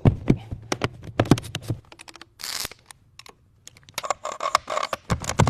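Hand tools clicking and tapping against metal while a part is bolted down: quick irregular clicks in two spells, with a brief hiss and a short pause about halfway through.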